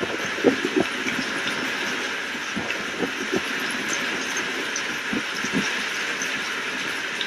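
Steady rain falling, a continuous hiss with a few scattered louder drops knocking irregularly; no thunder is heard.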